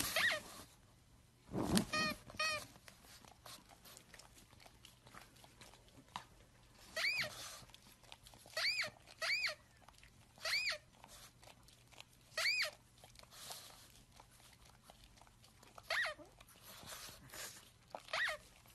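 Short squeaky chirps from a tablet game, all with the same rising-and-falling shape, about eleven of them spread out, set off as a pug noses and paws at the touch screen. Between them come soft taps and nose noises from the pug, with a louder low burst about two seconds in.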